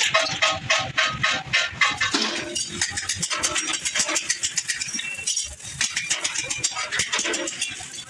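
Rapid light hammer strikes on a sheet-metal strip resting on a steel block, several blows a second with a metallic ring.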